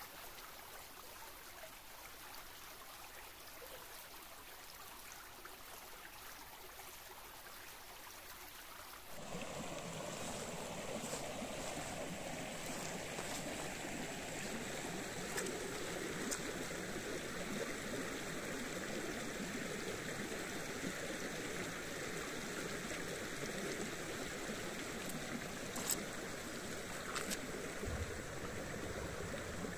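Flowing stream water, a steady rushing that about nine seconds in abruptly becomes louder and fuller.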